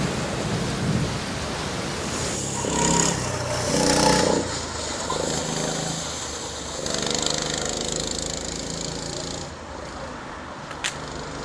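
A kart engine comes closer and passes, loudest about four seconds in, then keeps running more faintly. It sounds over a steady rushing hiss, with a single sharp click near the end.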